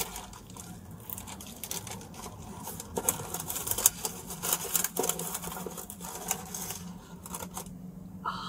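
Irregular small clicks and crackles from a pizza and its packaging being handled, thickest a few seconds in, over a faint steady low hum.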